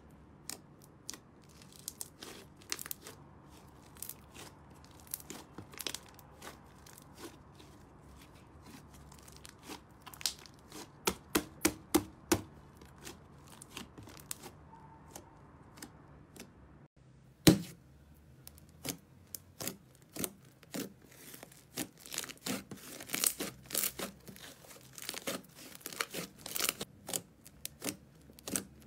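Fingers poking, pressing and squeezing thick, airy slime, giving irregular sharp clicks and pops that come in quick runs, with one louder snap partway through.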